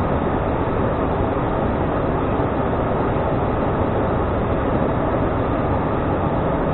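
Steady cockpit noise of an ATR turboprop airliner on approach: an even rush of engine, propeller and airflow sound, unchanging throughout.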